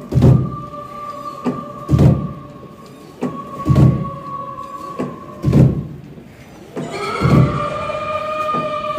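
Eerie music with a slow, deep booming beat about every two seconds over a held drone; a brighter layer of held tones joins near the end.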